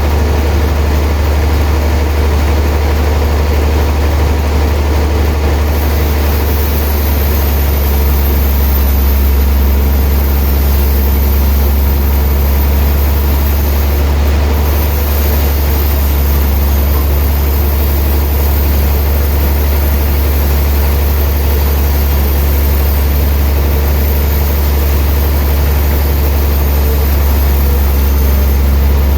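Heavy sawmill machinery running steadily, a loud, unbroken low mechanical hum with no cut or pause.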